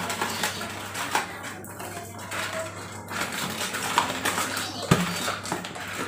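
Thin plastic bag crinkling and rustling as fingers work at the tight tie around its knotted neck, with a sharp click about five seconds in. A steady low hum runs underneath.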